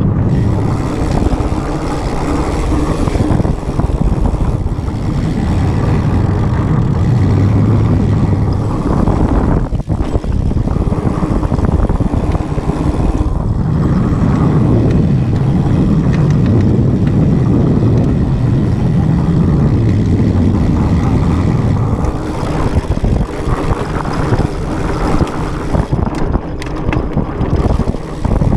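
Mountain bike riding fast down dirt singletrack: steady low wind buffeting on the camera's microphone mixed with the rumble and rattle of the tyres and bike over the trail, growing choppier near the end.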